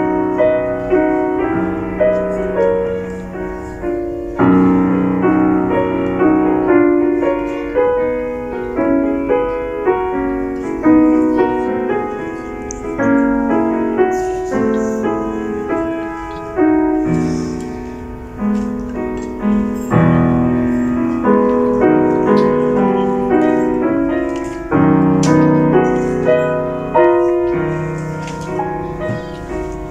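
Solo grand piano played continuously: a moving melody in the upper notes over lower sustained accompaniment notes, each note struck and then decaying.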